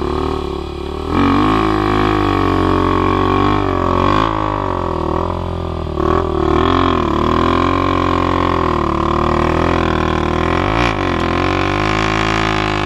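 Dirt bike engines running and revving in a continuous drone, the pitch dipping and rising again several times as the engine labours, while a Husqvarna dirt bike climbs a rutted mud hill.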